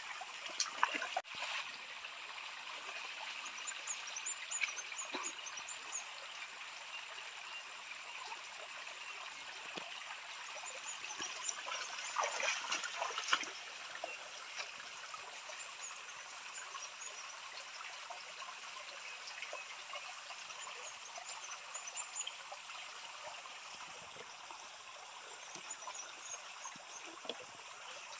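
A small shallow stream trickling over stones, a steady watery rush that swells briefly about twelve seconds in.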